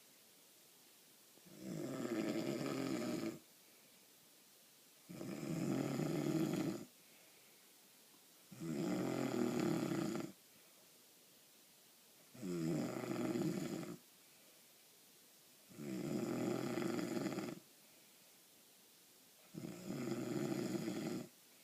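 A sleeping person snoring steadily: six long snores, each lasting one and a half to two seconds, coming about every three and a half seconds, with quiet between them.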